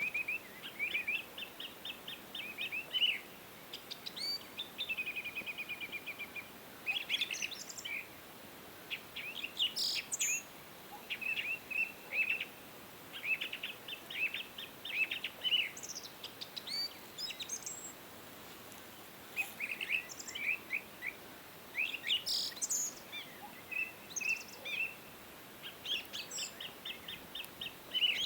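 Small birds chirping and singing in short phrases of quick high notes and trills, with pauses between phrases, over a faint steady background hiss.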